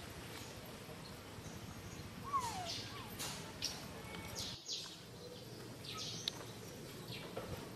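Outdoor ambience: a steady background hiss with scattered short, high bird chirps, and one short falling whistle about two seconds in. The sound drops out briefly about halfway through.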